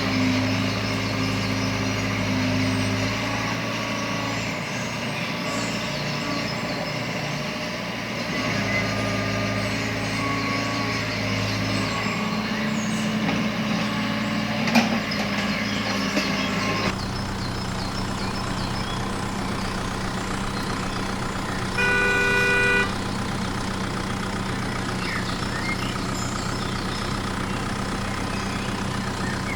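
Truck engine running steadily, with a sharp click about halfway through and a horn sounding once for about a second near the end.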